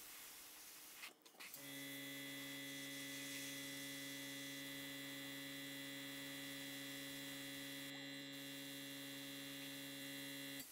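Airbrush compressor motor running with a steady hum. It starts abruptly about a second and a half in and stops suddenly right at the end.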